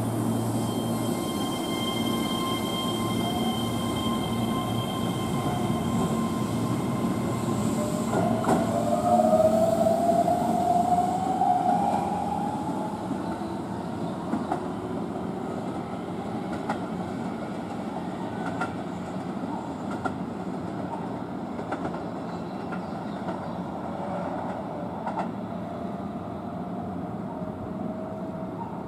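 Keihan 10000 series electric commuter train pulling out: its motors whine, rising in pitch as it accelerates, loudest about ten seconds in. Then the running noise of wheels on rails fades as it moves away, with another fainter rising whine near the end.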